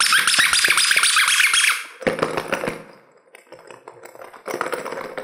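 Soft spiky rubber squeeze toy squeaking as thumbs press and squeeze it, in three bouts: a long one of about two seconds, a short one just after, and another near the end.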